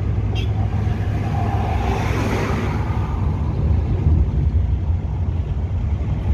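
Steady low road and engine rumble heard from inside a moving car's cabin, with a brief swell of rushing noise about two seconds in.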